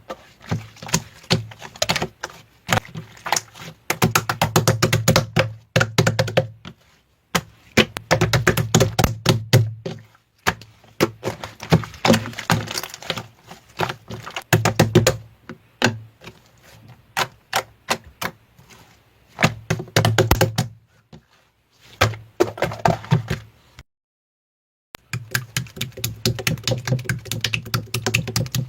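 Slime being worked by hand, giving rapid bursts of sticky clicks and pops with short pauses between them. The sound drops out completely for about a second near the end.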